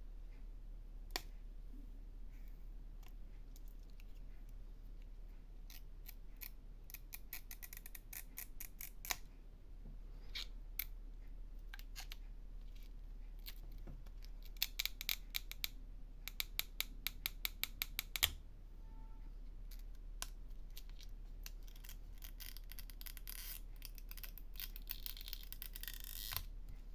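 Small hand tools clicking and scraping on an iPhone 6S Plus while its battery's adhesive pull tabs are worked loose. Scattered sharp clicks build to a quick run of about four ticks a second in the middle, with a stretch of scraping near the end.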